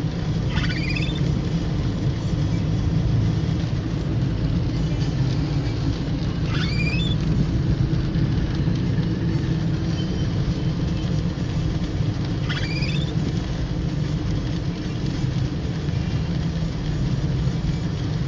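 Steady low rumble of a car driving on a wet road in the rain, heard from inside the cabin. A short rising squeak recurs about every six seconds.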